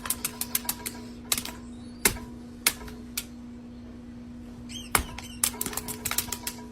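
Irregular sharp clicks and taps, several close together, then a pause of about a second and a half before more clicks near the end, over a steady low hum.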